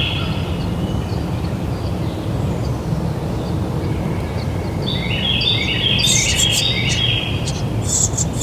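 Birds singing: a repeated stepped trill at the start and again from about five seconds in, with sharp high chirps joining near the end, over a steady low rumble of background noise.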